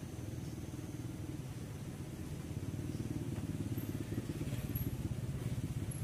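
Car engine and driving noise heard from inside a slowly moving car, a low pulsing drone that gets louder about halfway through.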